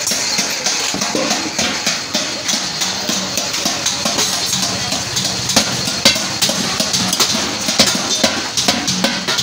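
Background music over irregular metallic hammer blows on a galvanized steel bucket as its rim is beaten into shape.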